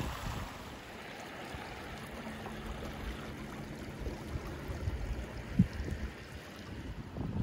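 Muddy floodwater rushing steadily along a swollen creek and out of a drainage pipe, with low wind buffeting on the microphone and a brief thump a little after five seconds in.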